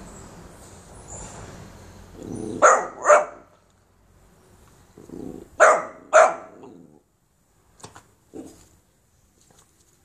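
Boxer puppy barking at a devil's coach-horse beetle: two pairs of quick, loud barks, one pair about two and a half seconds in and the other about five and a half seconds in. Low scuffling comes before the first pair, and a few light clicks follow the second.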